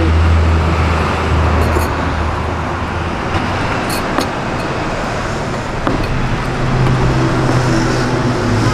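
Road traffic going by: a steady wash of vehicle noise, with one engine's low hum for the first few seconds and another engine hum coming in near the end. A few light clicks sound over it.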